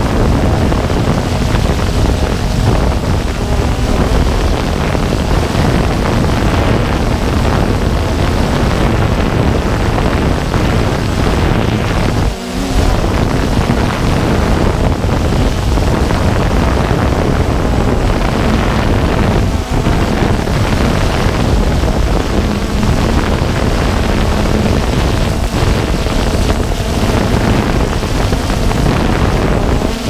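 Walkera Tali H500 hexacopter's electric motors and propellers running steadily in flight, heard from its on-board camera, with wind buffeting the microphone. The noise dips briefly twice, about twelve and twenty seconds in.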